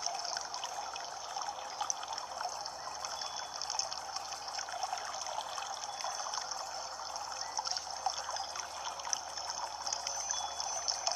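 Water trickling and babbling steadily in a small stream.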